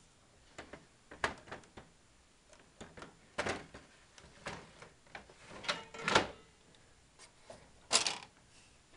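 Plastic paper cassette of an Apple LaserWriter Select 360 laser printer being handled and slid into the printer: a string of plastic clicks and knocks, the loudest about six seconds in and another sharp knock about eight seconds in.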